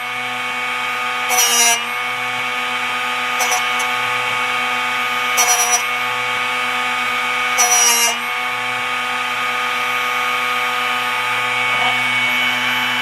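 Drill Doctor XPK drill bit sharpener's motor running steadily, with a short rasping grind about every two seconds as a dull drill bit in its chuck is turned against the grinding wheel. There are four grinds, then only the motor runs.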